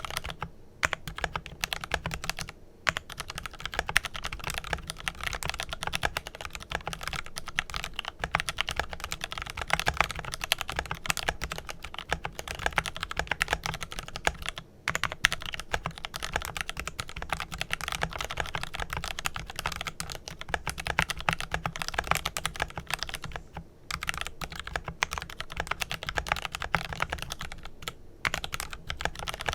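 Fast typing on a Glorious GMMK Pro mechanical keyboard with lubed Kailh Pro Purple tactile switches and PBT keycaps: a quick steady run of key clacks, broken by a few short pauses.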